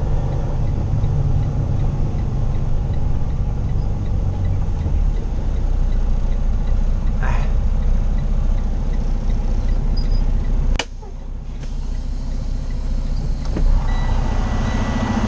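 Semi-truck diesel engine idling, heard from inside the cab as a steady low rumble. About eleven seconds in comes a sharp click, and the low rumble drops off and then builds back over the next few seconds; a thin steady high tone starts near the end.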